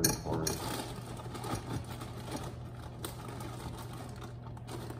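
Cardboard box and plastic bag of frozen breaded fish fillets being pulled open and handled: a steady crinkling crackle of packaging with a sharp knock at the start, over a low steady hum.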